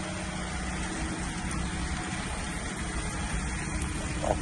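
Steady running noise of a car heard from inside the cabin while driving: a low engine hum under an even rush of road noise.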